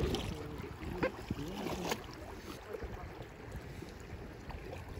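River water splashing and moving around a packraft on the river, with a few sharp splashes or knocks in the first two seconds and then a steady wash of water.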